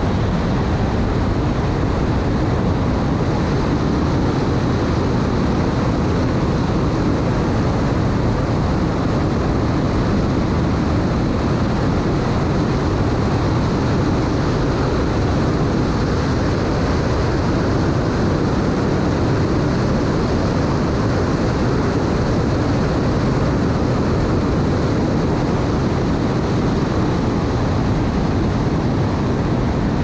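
Fountain 47 powerboat with triple Mercury 1350 engines running at speed: a loud, steady rush of wind and water with a deep engine drone underneath, unchanging throughout.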